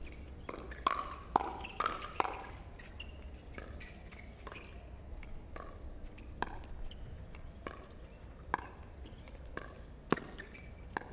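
Pickleball rally: paddles popping a plastic pickleball back and forth, a sharp hit about once a second, with several quicker hits close together in the first two seconds.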